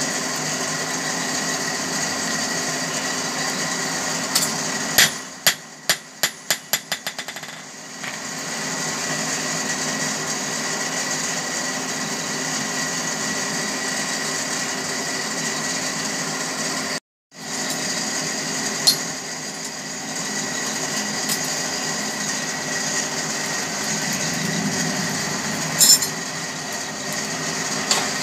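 A forge's electric blower hums and whirs steadily. About five seconds in, a run of metal-on-metal strikes comes faster and weaker, like a hammer bouncing to rest on an anvil, and a few single clinks follow later. The sound drops out briefly about two-thirds of the way through.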